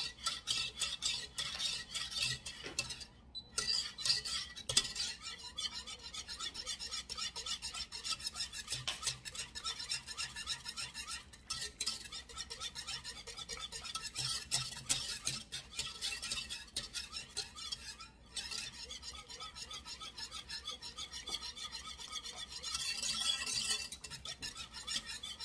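Whisk stirring gravy in a saucepan: rapid, continuous scraping and clicking against the pan, with two short breaks, about three seconds in and again past the middle. The gravy mix is being stirred constantly in water as it heats toward the boil.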